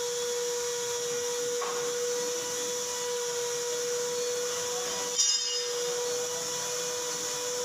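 Steady mechanical hum with a high hiss running throughout, and one sharp metallic clank with a brief ring about five seconds in.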